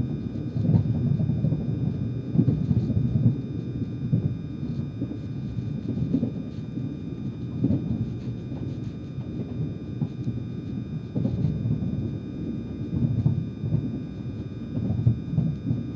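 Low rumble of a moving passenger train heard from inside the carriage, its wheels running on the rails, swelling and easing unevenly with occasional small knocks.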